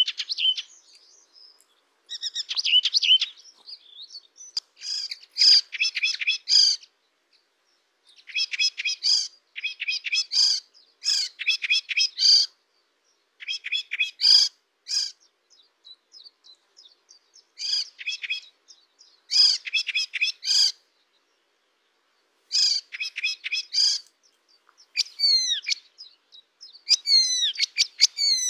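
Small songbird singing in quick phrases of rapid high notes, each phrase a second or two long with short gaps between. Near the end come a few phrases of fast downward-sweeping whistles.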